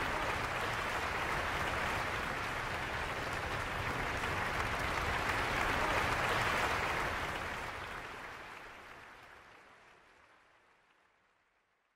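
Concert-hall audience applauding: a dense, even clapping that swells slightly about six seconds in, then fades away.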